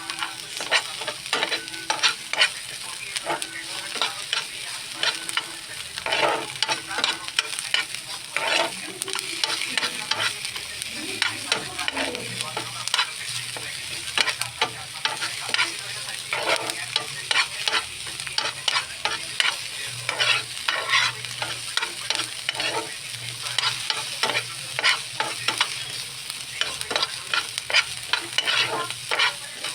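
Potatoes frying in oil in a pan, sizzling, while a spatula stirs and scrapes them in frequent short strokes.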